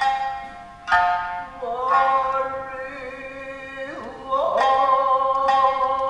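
Tokiwazu music: a shamisen plucks single notes that ring and die away, while a singer holds a long note that slides up into its pitch and is sustained over the plucks.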